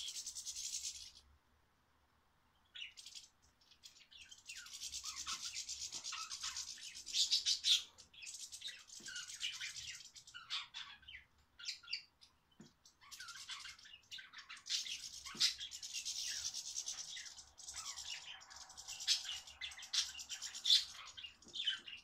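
Budgerigars chattering: a fast, high twittering in long runs, with a short pause about two seconds in.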